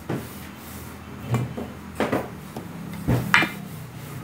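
Wooden rolling pin rolling and knocking on a floured work table as pizza dough is rolled out: a handful of dull knocks about a second apart, the loudest a little past three seconds in, over a steady low hum.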